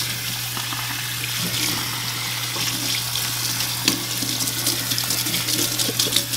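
Water from a kitchen faucet's pull-down sprayer running steadily into glass propagation vessels in a stainless steel sink, splashing over the cuttings as the vessels fill, with a brief knock about four seconds in.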